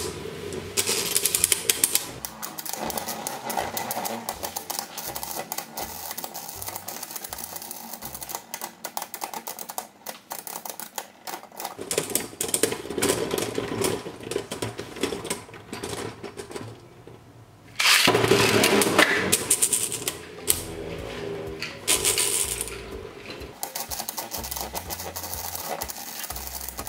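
Two spinning Beyblade Burst tops, Glide Satan on a Wheel Xtend+ 1S and World Spriggan on a Rise 2D, rubbing rim to rim in a plastic stadium: a fast, continuous plastic clicking and rattling. It eases briefly, then comes back louder about eighteen seconds in.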